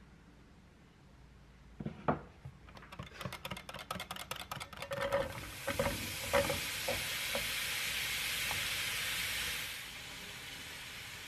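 A wire whisk beating batter in a glass measuring jug, quick rapid clinks against the glass. Then chopped apples sizzling in a frying pan, a steady hiss that dies down near the end.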